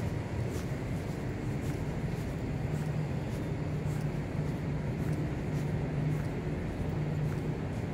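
Steady low outdoor rumble of city background noise, with the faint, regular ticks of a walker's footsteps about every half second.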